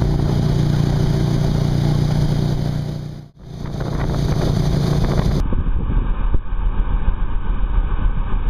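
Tow boat's engine running with a steady low drone and water rushing, dropping out briefly about three seconds in. In the second half, wind buffets the microphone in gusts over a low rumble.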